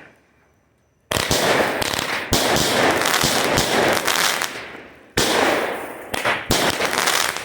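16-shot, 200-gram consumer firework cake firing. After about a second of quiet, a fast run of sharp bangs starts, and each trails off into a noisy tail. Fresh loud bangs come about two, five and six seconds in.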